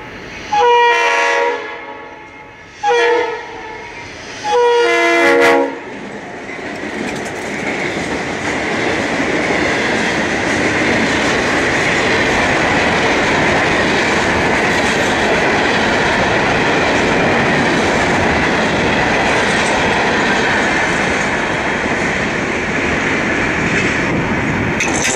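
Diesel freight locomotive horn sounding three blasts, long, short and long: the end of the long-long-short-long grade-crossing signal. Then the train passes close by: a steady, loud rolling rumble and clatter of freight car wheels on the rails.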